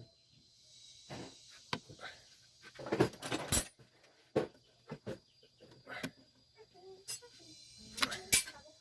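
Scattered clinks and knocks of metal hand tools and parts being handled during engine work, the sharpest about three seconds in and near the end. A faint steady high insect drone runs underneath.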